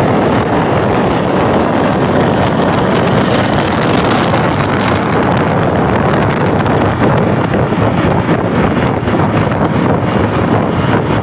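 Loud, steady rush of wind buffeting the microphone, mixed with vehicle and road noise, with no horn tones.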